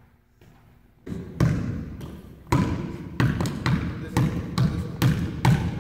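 Basketballs bouncing as they are dribbled on a hardwood gym floor. The bounces start about a second in and settle into about two a second, each with a short echo.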